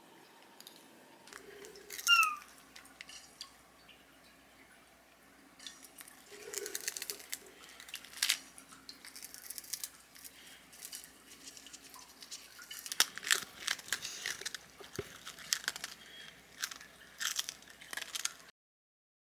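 Close-up eating sounds: crunchy food bitten and chewed in irregular clusters of crunches. A short high squeak about two seconds in is the loudest moment, and the sound cuts off suddenly near the end.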